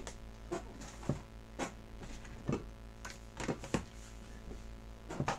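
Handling noises: scattered short knocks and rustles as small items and packaging are picked up and put down on a desk, over a steady low hum.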